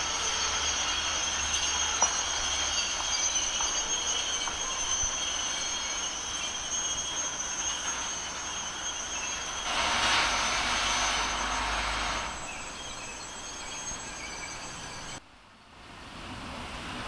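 Freight train of tank wagons, hauled by an electric locomotive, rolling slowly into the station with its wheels squealing in steady high-pitched tones. A louder rushing noise comes in for about two seconds midway.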